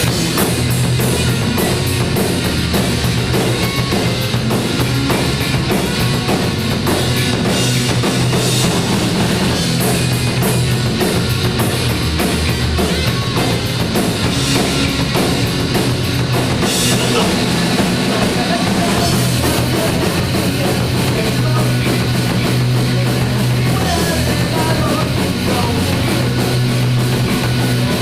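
A rock band playing live, loud and steady: drum kit, electric guitars and bass in an instrumental stretch of a song.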